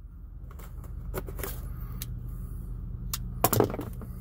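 A knife cutting the tape seal on a cardboard box, and the cardboard being handled: a scatter of short scratchy scrapes and clicks, with a louder crackling cluster about three and a half seconds in. A steady low hum runs underneath.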